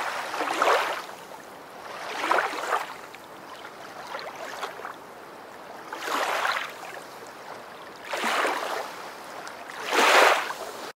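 Rushing noise that swells and fades about every two seconds, with the loudest swell near the end.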